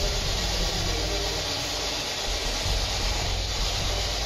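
Steady hiss with a low rumble underneath, unchanging throughout.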